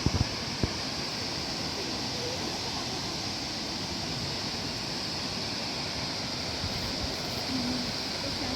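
Steady rush of a mountain waterfall: an even hiss of falling water that holds at one level throughout. Two short knocks sound just after the start.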